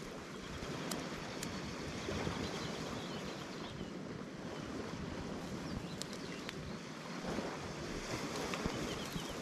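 Steady wash of small waves on the beach, with wind buffeting the microphone and a few faint clicks.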